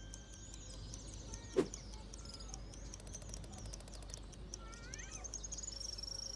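Outdoor ambience of small birds chirping and calling, many short high chirps with a few gliding calls late on. A single thump sounds about a second and a half in, and a steady high whine, like an insect, starts near the end.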